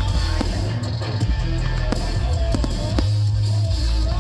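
Loud rock music with electric guitar and drums, with sharp hits scattered through it.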